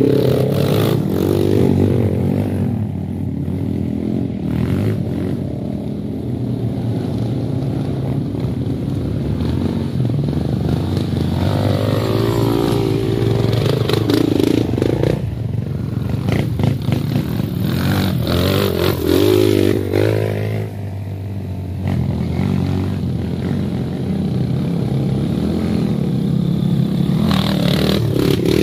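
Trail motorcycles riding past one after another, their engines running and revving. The engine note swells and sweeps in pitch as each bike passes, most clearly about halfway through, around two-thirds of the way in, and near the end.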